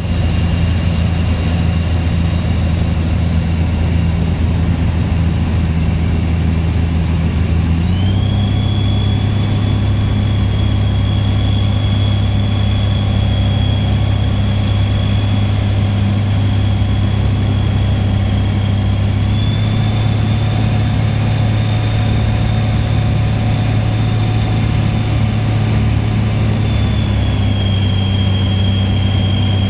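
Skyranger Swift 2 microlight's engine and propeller running steadily, heard inside the cockpit. The pitch steps up about eight seconds in and eases down slightly near the end: power changes on the approach to land.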